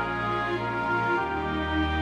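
Background music: slow held chords, with the bass and chord changing about a second in.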